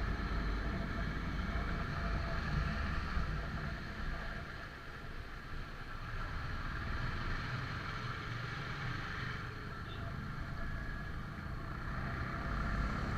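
Motorcycle engine running steadily while riding along a road, with a constant low rumble of engine, road and wind noise; it eases off slightly for a moment about four seconds in.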